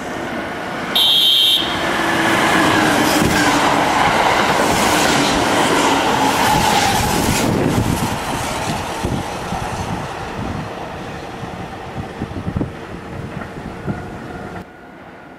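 Kintetsu electric train running through a station: a short high horn blast about a second in, then the loud rush and wheel clatter of the train going by, slowly fading. The sound drops off suddenly near the end.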